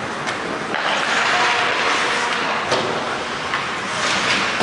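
Ice hockey play in an indoor rink: skates scraping the ice under a steady hall noise, with a few sharp clacks of sticks and puck.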